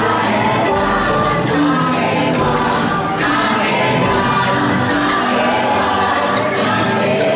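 The ride's soundtrack: music with choir-like singing over long held tones.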